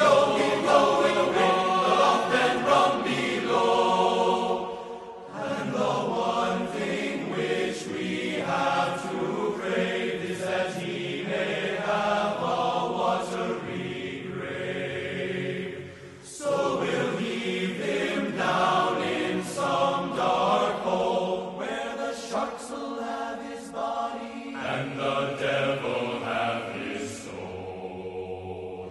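A group of voices singing a sea shanty in chorus, with a short break between phrases a little past halfway.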